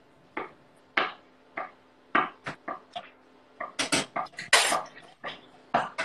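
Kitchen knife knocking on a wooden cutting board while dicing feta cheese into small cubes: separate knocks about every half second at first, bunching into a quick run of strokes about four seconds in, then a few more.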